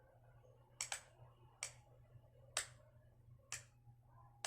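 Sharp clicks of a signalling light's switch keying Morse code for the letter Y, about six clicks roughly a second apart, one of them doubled.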